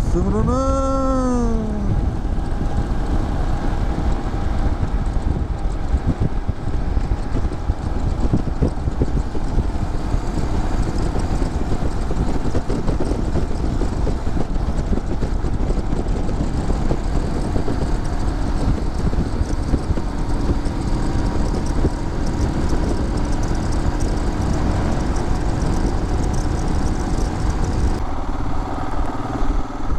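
Motorcycle on the move, its engine, road noise and wind running steadily throughout. In the first two seconds a short pitched tone rises and then falls over it.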